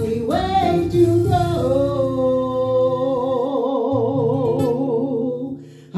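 Woman singing a gospel song into a microphone over held backing chords, ending on a long note with vibrato that fades out near the end.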